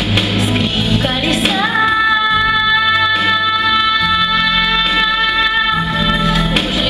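An 11-year-old girl singing a pop song over an instrumental backing track. She scoops up into one long held note about one and a half seconds in and sustains it until near the end.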